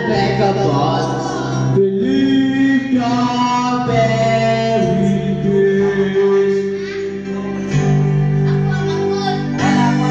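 Young man singing into a corded microphone over a music backing track, holding long notes.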